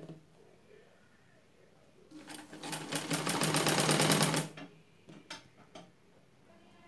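Domestic sewing machine stitching a seam in one burst of about two seconds, a rapid even clatter of roughly ten stitches a second, then stopping. A couple of light clicks follow.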